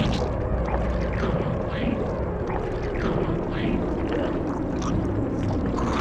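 Film sound effects: a steady low rumble under a string of short squeaking, creaking glides, about two a second.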